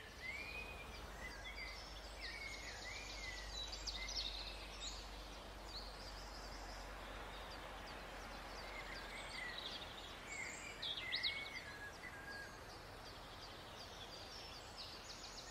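Daytime forest ambience: several small birds chirping and trilling on and off over a faint steady hiss and low hum.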